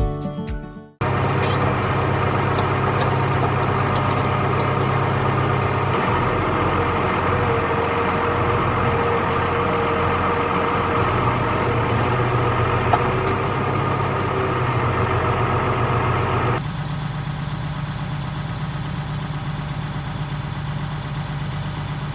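Background music fades out, then a heavy farm machine's engine runs steadily. About two-thirds of the way through, the sound cuts abruptly to a quieter, lower engine drone.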